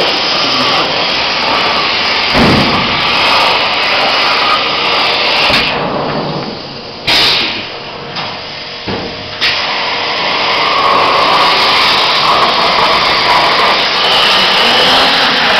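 Hypertherm Max 100 plasma torch on a CNC cutting table cutting metal plate: a loud, steady hissing noise from the arc and its air jet. About six seconds in the arc goes out and the sound drops for roughly four seconds, broken by one short burst. Then the arc fires again and the steady cutting noise returns.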